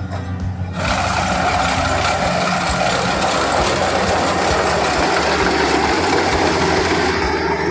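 Kubota rice combine harvester running steadily: a dense mechanical rush over a low engine hum, jumping louder about a second in.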